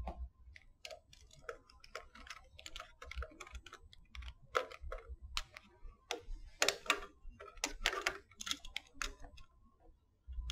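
Faint, irregular clicks and taps of hands handling a cable connector and a small screwdriver, as the screwdriver is picked up and set to the connector's screws.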